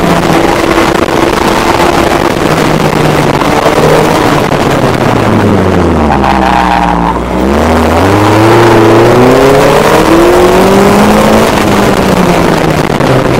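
Ariel Nomad's engine under hard driving, over heavy wind and road noise. The engine note falls as the car slows for a bend about six to seven seconds in, then climbs again as it accelerates away.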